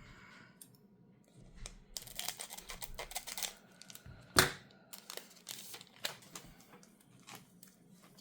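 Foil booster-pack wrapper being torn open and crinkled by hand, a run of dense crackles with one sharper, louder crackle about four seconds in.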